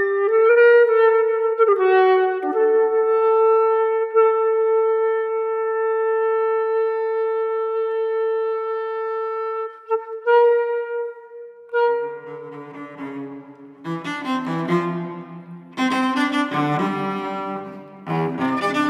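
Flute holding one long, steady note for about ten seconds, then from about twelve seconds in a cello playing short bowed notes in a lower register. The phrases follow notes that software derived from a recorded speech rather than a conventional melody.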